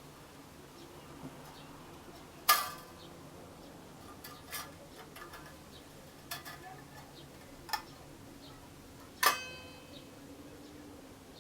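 Scattered sharp clicks and knocks over a quiet hiss. Two louder strikes, one about two and a half seconds in and one near nine seconds, each ring briefly with a pitched tone.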